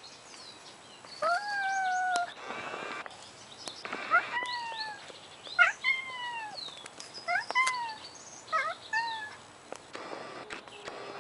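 A cat yowling in a standoff with another cat: a run of about six drawn-out, wailing calls, each starting with a sharp rise and then sagging in pitch, with a burst of noise between the first two.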